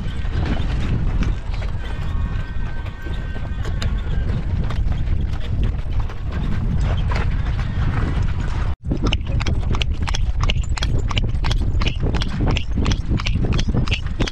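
Carriage horse's hooves clip-clopping on the road as it pulls a carriage, over a steady low rumble. The hoofbeats come out clearly and evenly, about three a second, after a momentary break in the sound about two-thirds of the way through.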